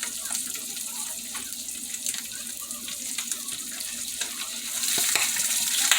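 Eggs frying in margarine in a pan: a steady sizzle with scattered small pops, getting louder near the end.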